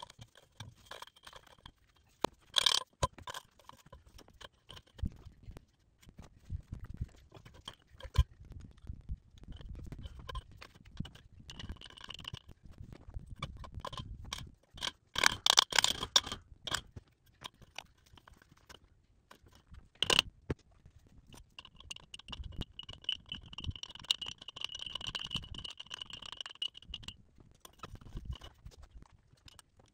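Wrench and metal hardware working on a pipe rail while gate-hinge bullet connectors are fitted: scattered metal clinks, scrapes and rattles, with a few louder knocks about 3, 15 and 20 seconds in.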